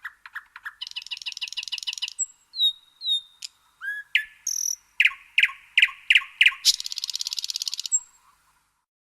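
A songbird singing a varied song: fast buzzy trills, clear whistled notes that slide in pitch, and a run of loud sharp chips, ending in another long fast trill near the end.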